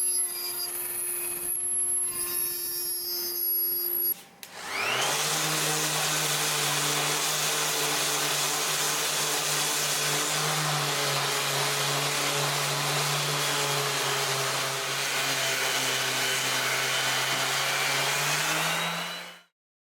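A power tool's electric motor starts up about four and a half seconds in, its whine rising quickly to speed, then runs steadily and cuts off suddenly near the end. Before it, a quieter machine sound with a steady hum.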